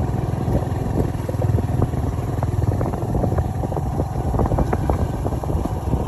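Motorcycle engine running steadily while riding over a dirt road, with scattered knocks and rattles from the bumps.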